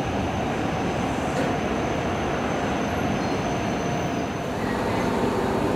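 Toyama Chiho Railway electric commuter train at the platform, making a steady train noise with a faint high-pitched whine that stops about four and a half seconds in.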